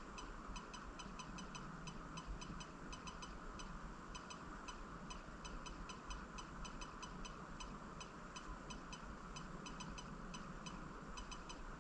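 MacBook making an abnormal noise: clusters of quick, high ticking, several ticks a second with short gaps, over a steady hiss.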